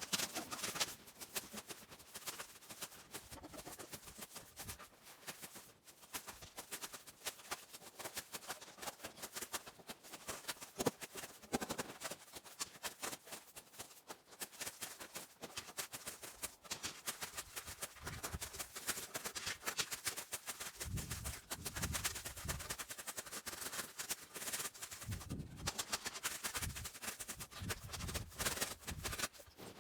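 Shovel digging into deep snow: a run of irregular crunching scrapes, with some duller low thumps in the second half.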